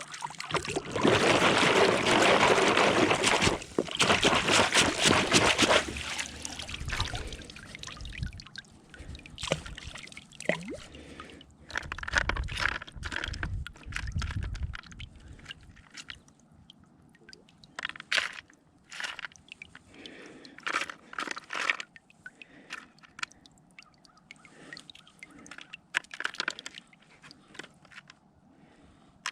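Sifting screen of river gravel and clay being sloshed in water, loud for a few seconds, then stones clicking and rattling in the screen as it is picked through.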